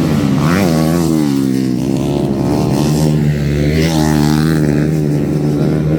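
Motocross motorcycle engine running hard, its pitch rising and falling as the throttle is opened and shut, with a quick rev about half a second in.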